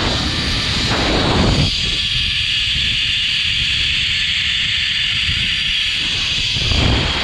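Zipline trolley's pulleys running fast along a steel cable, a steady high hiss, with wind buffeting the action camera's microphone in gusts about a second in and again near the end.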